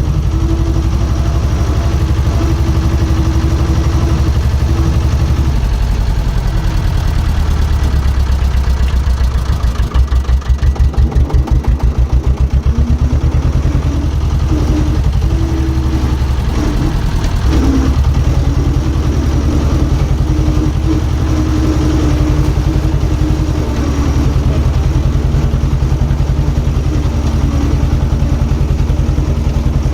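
Diesel engine of construction plant running steadily, its pitch shifting a little as it works. For a few seconds about a third of the way through it gives a loud, rhythmic throb.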